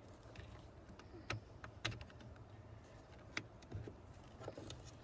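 A few scattered light clicks and taps of parts being fitted by hand inside a car door, over a low steady hum.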